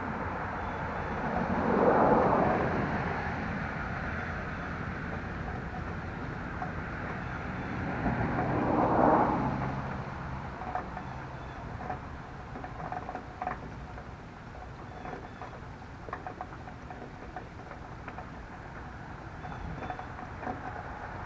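Two vehicles passing by, each swelling up and fading away, the first about two seconds in and the second about nine seconds in, over a steady background of outdoor noise; a few faint clicks follow in the second half.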